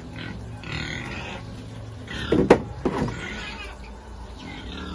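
Domestic pigs grunting in a pen, with a sharp knock about halfway through and a smaller one just after.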